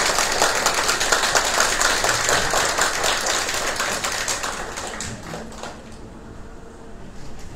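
Audience applauding, a dense patter of many hands that dies away about five to six seconds in.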